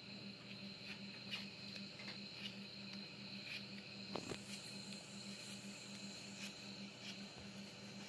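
Faint, repeated scraping strokes of a hand-held vegetable peeler taking the skin off a raw potato, about one stroke every half second to a second, over a steady faint high tone and low hum.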